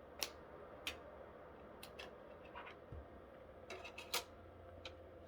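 A handful of faint, separate clicks and taps, about seven in five seconds, over a low steady hum: small handling noises on a PlayStation 2 console.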